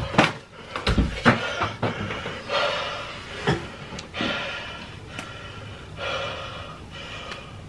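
A few sharp slaps and knocks in the first seconds as a gloved hand strikes a man, then a man's heavy breathy gasps and groans, each lasting about a second.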